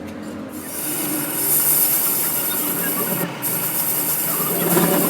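Harsh, steady rasping hiss of a tool working steel, starting about half a second in, with a brief break around three seconds.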